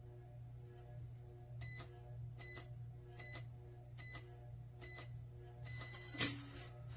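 Electronic keypad of a biometric pistol safe beeping with each button press, five short beeps a little under a second apart. Then a longer beep ends in a loud clack as the lock releases.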